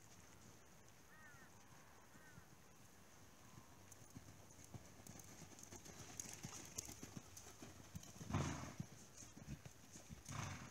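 Faint hoofbeats of a horse loping on a dirt arena, growing louder as it passes close about six seconds in. Two louder noisy bursts come near the end.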